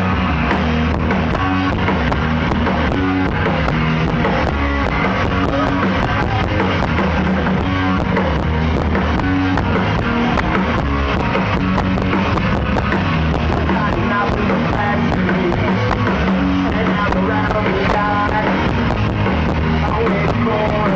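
Rock band playing live, with guitar and drum kit driving a steady beat.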